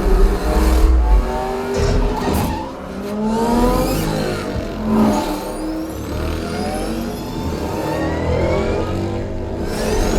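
Movie soundtrack of racing cars played through a home-theatre system and recorded in the room. Several engines rev and sweep past, their pitch gliding up and down over a deep subwoofer rumble.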